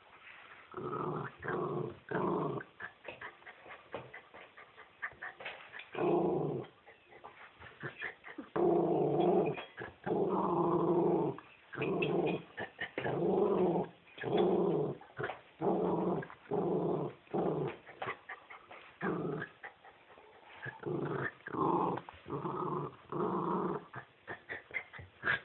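A dog vocalizing in a long series of short pitched sounds, each under a second, with a few longer ones in the middle and short pauses between.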